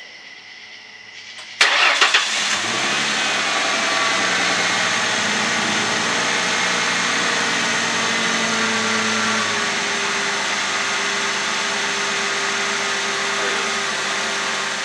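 2000 Ford Mustang's 3.8-litre V6 cranking briefly and catching about a second and a half in, then running steadily. It is the first start after a fresh oil change. The engine note steps down slightly partway through as the idle settles.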